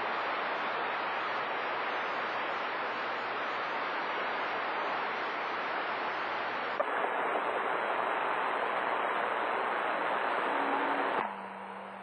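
CB radio receiver on channel 28 hissing with open-squelch band static between skip transmissions. There is a small click about seven seconds in, after which the hiss sounds duller. Near the end the hiss drops away quieter as an incoming station's carrier comes up on the signal meter.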